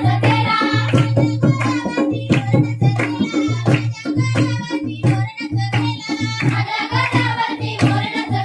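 Folk song sung with hand-drum accompaniment: a singing voice over a steady rhythm of drum strokes.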